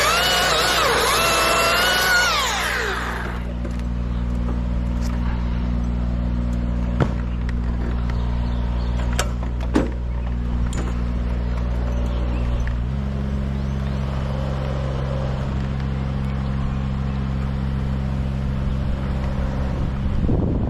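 Chainsaw running at high revs for the first few seconds, its pitch wavering as it cuts, then winding down about three seconds in. After that a steady low engine hum runs on and shifts pitch once, past the middle, with a couple of sharp knocks of wood.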